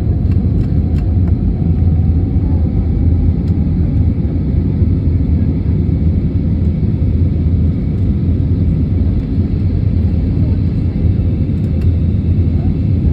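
Steady cabin rumble inside a Frontier Airlines Airbus A320neo in flight or on its takeoff run, the drone of its Pratt & Whitney geared turbofans mixed with airflow noise, with a few faint clicks.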